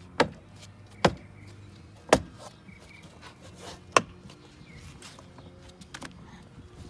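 Plastic door trim panel of a Ford F-150 being pushed onto the door, its retaining clips snapping into their holes: four sharp knocks, roughly a second apart at first, then a few faint ticks near the end.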